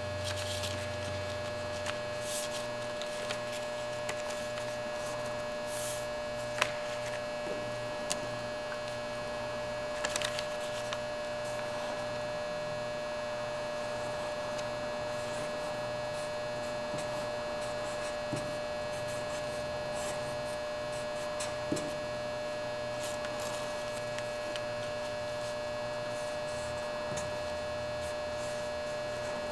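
Steady electrical hum with a high whine, with a few soft clicks and taps from paper being folded and written on with a marker; the sharpest click comes about six and a half seconds in.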